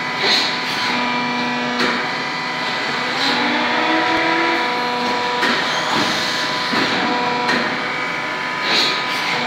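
Billion 140-ton hydraulic injection moulding machine running through its moulding cycle. A steady hum carries pitched tones that come and go, one of them briefly rising, through repeated sharp clicks and hisses. The loudest hiss comes near the start and again near the end, about eight and a half seconds apart.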